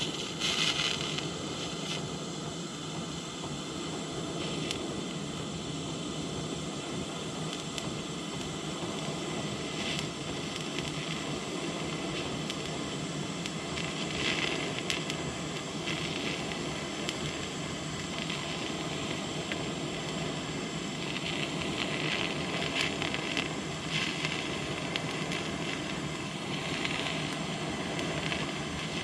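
TIG welding arc from a Yeswelder 200P running at 80 A on 1/8-inch mild steel with a 2.4 mm tungsten: a steady hiss that swells and brightens now and then as 1.6 mm filler rod is fed into the puddle.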